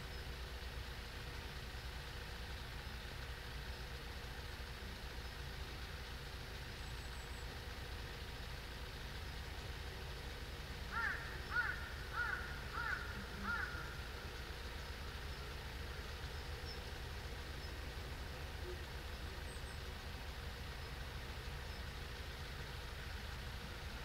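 Heavy construction machinery running with a low, steady drone, while a crow caws five times in quick succession about halfway through.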